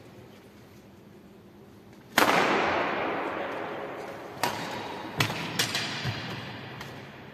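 Badminton rally in a large echoing sports hall: a loud racket strike on the shuttlecock about two seconds in that rings on for several seconds, then four sharper hits over the next two seconds or so.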